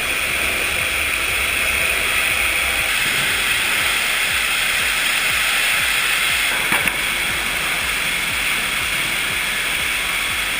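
Steady machine noise of an automated sawmill line running, an even hiss with no distinct strokes, and one faint click about seven seconds in.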